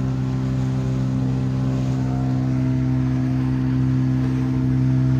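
Motorboat engine running steadily at cruising speed, a constant drone that holds one pitch.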